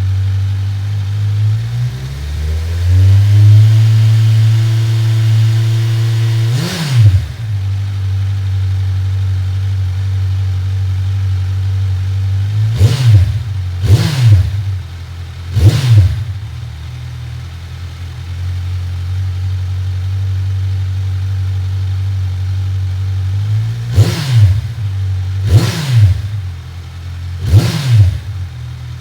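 Kawasaki Ninja 1000's inline-four idling through a newly fitted Black Widow 4-2-1 aftermarket exhaust. The idle climbs to a higher, steady speed about two seconds in. Sharp throttle blips come once around seven seconds in, three times in quick succession midway, and three more near the end, each falling straight back to idle.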